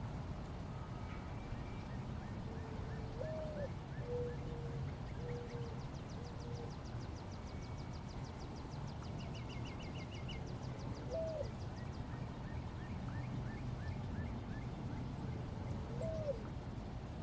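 Several wild birds calling over a steady low background rumble: a fast, high trill from about five to twelve seconds in, short series of mid-pitched notes, and three low swooping calls.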